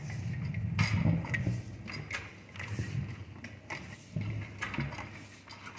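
Drain-cleaning cable being fed and worked down a floor drain blocked with hardened grease, scraping and knocking against the drain opening in irregular clicks over a low, uneven rumble.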